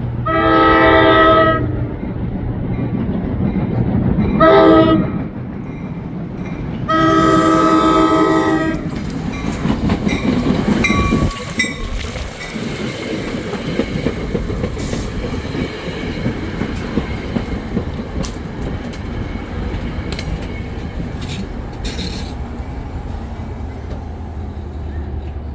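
NJ Transit commuter train's K5LA air horn sounding three blasts, long, short, long, in the first nine seconds, followed by the train rolling through the station with wheels clicking over the rail joints and a steady rumble.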